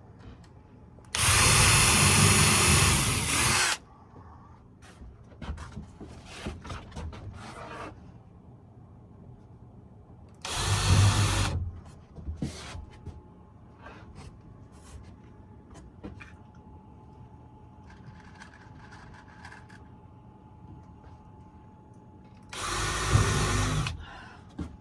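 Power drill driving screws into thin ceiling boards: three runs, the first about two and a half seconds long and the others a second or two, with light knocks and handling clicks between them.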